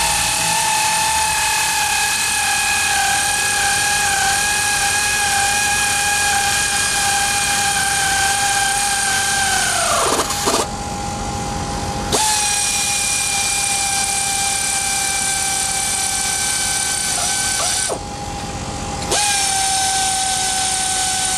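Hand-held power tool with a socket running nuts down onto the engine column's hold-down studs: a steady high whine with hiss. About ten seconds in it slows and drops in pitch as a nut seats, stops for a moment, then runs again, with another short stop near the end.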